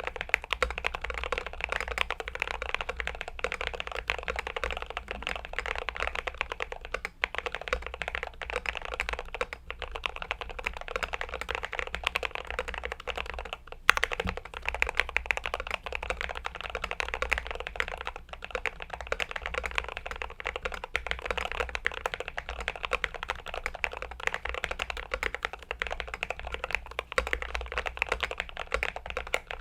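Continuous fast typing on a Glorious GMMK Pro aluminium-case mechanical keyboard, a dense run of key clacks, with one louder stroke about halfway through.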